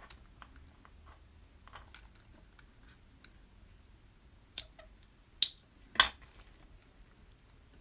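Sparse small metal clicks and light taps as a leather strap with metal clasps is handled, with sharper clicks about four and a half, five and a half and six seconds in, the last the loudest.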